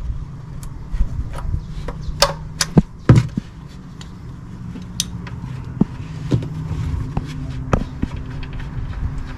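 Irregular metallic clicks and knocks from a wrench working on the engine's oil drain plug as it is loosened, over a steady low hum.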